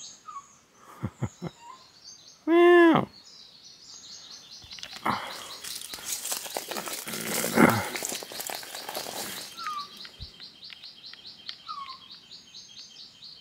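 Ring-tailed lemur giving one meow-like call about two and a half seconds in, its pitch arching and then dropping away at the end. A rapid, steady high chirping goes on in the background, and for a few seconds in the middle rustling and handling noise covers it.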